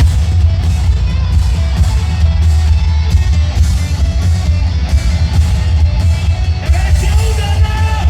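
A live rock band comes in abruptly and plays loud, with pounding bass, drums and guitar, and vocals over the top.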